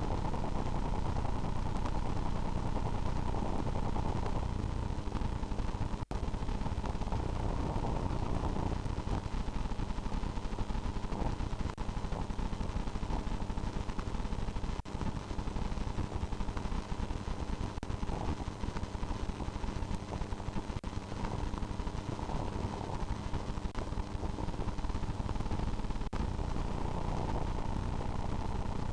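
Steady low rumbling noise with a crackle running through it, and a single sharp click about six seconds in.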